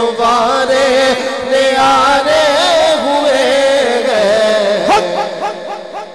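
Man's voice singing a naat through a microphone: a long, ornamented held note that wavers up and down in pitch, fading off about five seconds in.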